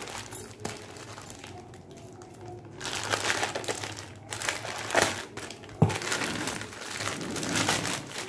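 Plastic courier mailer bag crinkling as it is handled and its contents are pulled out. It is faint for the first few seconds and louder and busier from about three seconds in, with a sharp snap near six seconds.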